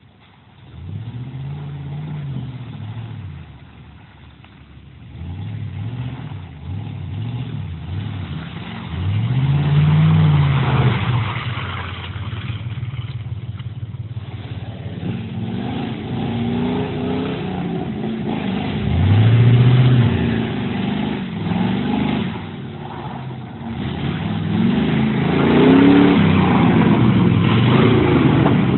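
Ford F-150 pickup engines revving up and easing off again and again as the trucks drive through mud, the pitch rising and falling several times.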